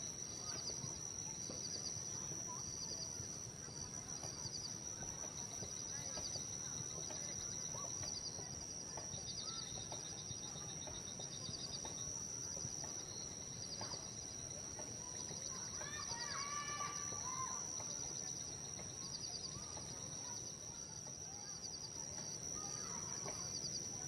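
Outdoor ambience of insects: a steady high-pitched drone with a faint chirp repeating about once a second. Bird calls come in about two-thirds of the way through and again near the end.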